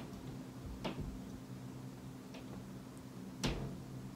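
Quiet room with a steady low hum, broken by a few sharp knocks or clicks: one about a second in, a faint one midway and the loudest near the end.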